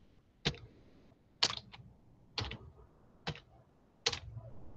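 Single keystrokes on a computer keyboard, about seven short taps spaced unevenly, roughly one a second, while code is being edited.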